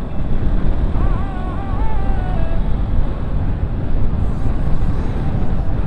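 Wind buffeting a helmet-mounted microphone while riding a Bajaj Pulsar NS200 motorcycle at road speed, a steady low rush with the bike's single-cylinder engine under it.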